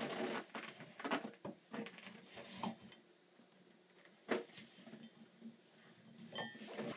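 Faint handling noise from a strap wrench and hands turning a threaded chrome tub spout tight onto its pipe: scattered light clicks and rubs, with one sharper knock a little after four seconds in.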